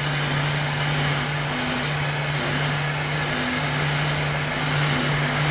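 Electric heat gun running on its hot setting: a steady blowing hiss over a constant low hum from its fan motor.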